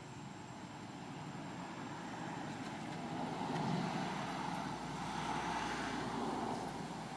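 A passing motor vehicle: a steady engine-and-road rumble that swells to its loudest mid-way and then fades.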